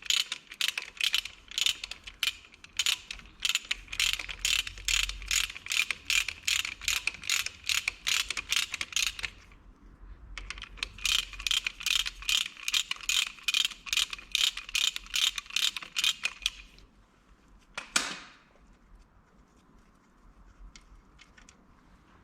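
Ratchet wrench clicking quickly and evenly as bolts are turned, in two long runs with a short break in between. A single short, sharp sound comes near the end.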